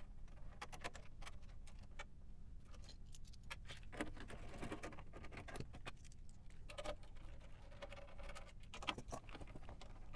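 Faint scattered clicks, light rattles and scraping from hands working at a metal instrument case: screws being undone and a plastic carry strap being pulled off and set down on the bench.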